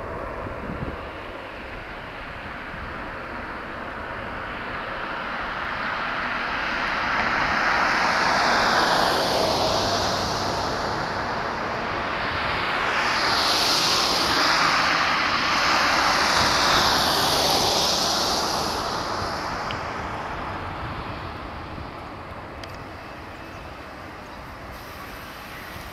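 Airbus A320's twin CFM56-5B turbofan engines at takeoff thrust as the airliner lifts off and climbs away. The jet noise swells to its loudest about a third of the way in and again around the middle, with a sweeping, phasing quality, then fades as the aircraft climbs out.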